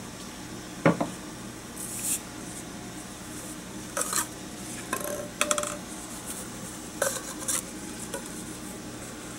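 Plastic measuring cups and spoons knocking and tapping against a plastic mixing bowl as flour and spices are tipped in. A sharp knock comes about a second in, followed by several short bursts of clinking and rattling.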